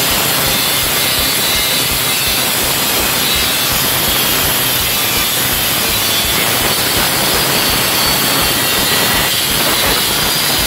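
Corded angle grinder with a diamond metal-cutting disc running under load as it cuts through a steel bar, a loud steady grinding with no pauses.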